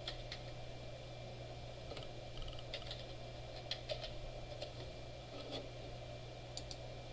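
Faint, scattered keystrokes on a computer keyboard as a single word is typed slowly, a few clicks at a time. A steady low hum and room noise run underneath.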